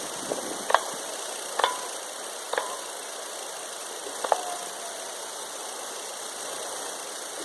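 Distant suppressed .22 Long Rifle shots from a Ruger 10/22: four short, faint cracks about a second apart, the bullet impacts louder than the muffled reports. A steady hiss runs underneath.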